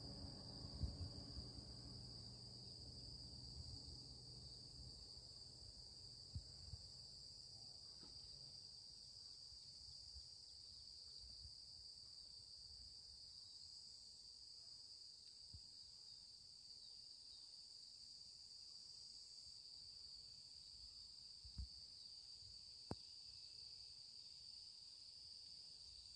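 Faint, steady high-pitched insect chorus, with a few soft knocks scattered through it.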